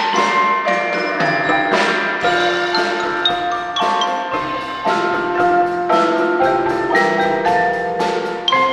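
High school percussion ensemble playing a tune on pitched mallet percussion: a quick, continuous run of struck notes that ring briefly, with bell-like high notes over lower ones.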